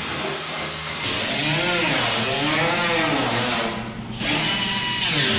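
Handheld power tool working on rusty truck sheet metal, its pitch repeatedly rising and falling as it runs, with a brief break about four seconds in.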